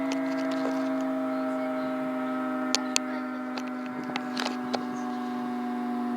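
Secomak CS8 civil-defence siren sounding a steady, even note during its routine test, with a few short clicks over it.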